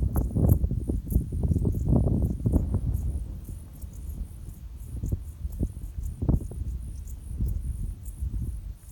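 Crickets chirping in a high, pulsing trill, a few pulses a second, over a low rumble that is loudest in the first few seconds and then eases.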